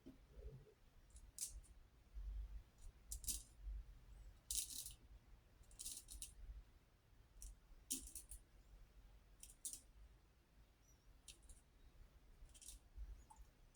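Razor scraping through lathered stubble in short, faint strokes, about one every second or so.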